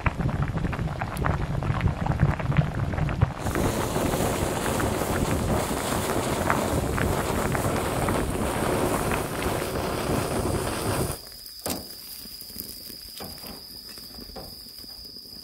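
Spicy soup bubbling in a mess tin, then a gas canister camping stove's burner hissing steadily. About eleven seconds in this cuts off abruptly to the quieter crackle of a charcoal grill fire, with one sharp click.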